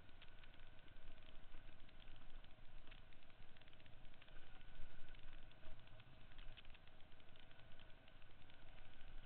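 Motorcycle going slowly downhill over loose rock: a low, steady engine hum under constant crackling and rattling from the tyres and bike on the gravel.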